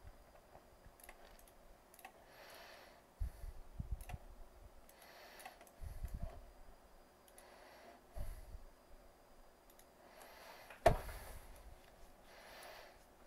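Irregular faint clicks of a computer mouse and keyboard, with a few dull low thumps and one sharp, loud click about eleven seconds in.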